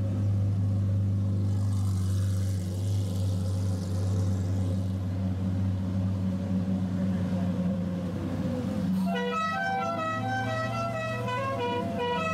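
Lamborghini Murciélago V12 engines running steadily at low revs as the wide-body cars creep past. About nine seconds in, a tune of high stepped notes starts over the engine sound.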